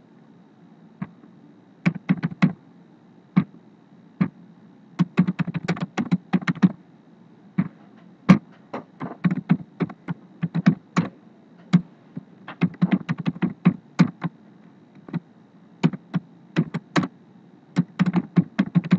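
Computer keyboard typing: short, irregular bursts of keystrokes with brief pauses between them.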